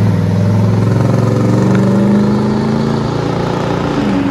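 2018 Nissan Titan's 5.6-litre V8 exhaust, factory true duals with a 14-inch Magnaflow muffler, under throttle as the truck drives past and away. The note holds steady and eases off a little near the end.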